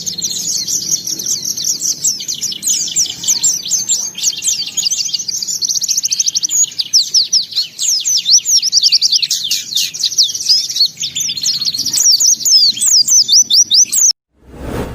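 Pleci (white-eye) singing non-stop, a fast high twittering of chirps, rapid trills and sweeping notes strung into one long outpouring of its repertoire of fill-in phrases. The song cuts off suddenly about 14 seconds in, followed by a brief burst of noise.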